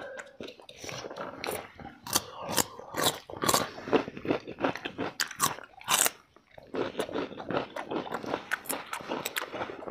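Two people eating beef intestine soup close to the microphone: chewing and crunching, with many short sharp mouth clicks and smacks and a brief pause a little after six seconds.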